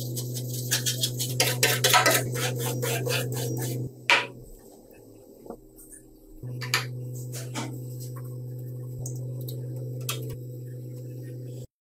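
Small wire brush scrubbing a Vespa's rusty steel body panel in quick strokes, about four a second, over a steady low hum. After about four seconds the scrubbing gives way to a sharp knock and then scattered light clicks and taps.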